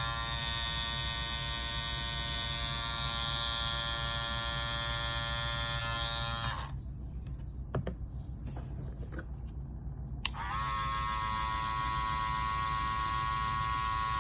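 Two Andis Master cordless hair clippers, the gold edition and the older silver version, are switched on one after the other. Each gives a steady, high electric buzz. The first runs for about seven seconds and stops, a few clicks follow, and the second starts about ten seconds in.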